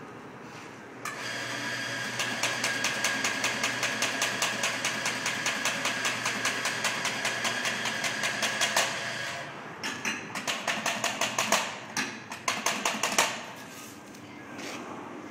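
Espresso machine steam wand frothing milk: a steady hiss with a fast, rhythmic ripping chatter as air is drawn into the milk. It stops about nine and a half seconds in, then comes back in a few short spurts.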